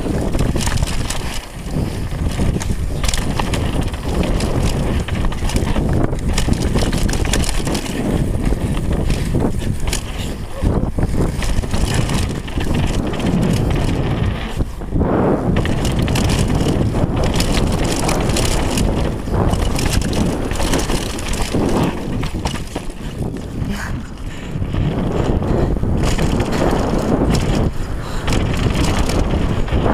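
Downhill mountain bike ridden fast over a rough dirt trail: tyres rumbling on dirt and the bike rattling and knocking over roots and bumps, with heavy wind buffeting on the action camera's microphone.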